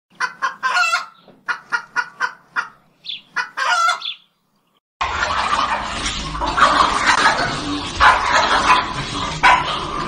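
A run of short, sharp animal calls for about four seconds, then a second of silence. From about five seconds in, dogs face each other through a glass door over a steady noisy background, with several sudden loud sounds.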